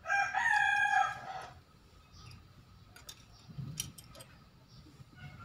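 A rooster crows once, a pitched call about a second and a half long that drops off at the end. Then come a few faint clicks from a car key and its plastic cover being handled.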